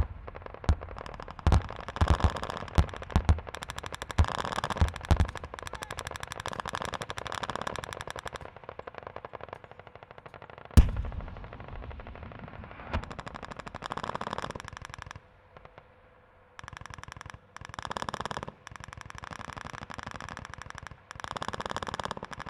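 Battlefield gunfire: heavy single shots mixed with long bursts of rapid automatic fire. One especially loud shot rings out about halfway through, and after a brief lull more automatic bursts follow.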